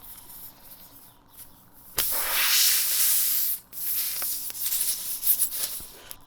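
Compressed air hissing out of a punctured tyre as the plug tool works the hole: one steady burst of hiss, then after a short break a broken, uneven hiss that stops near the end.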